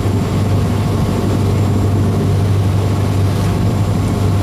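Steady low drone of a ship's engine, an even hum with a noisy rumble over it that does not change.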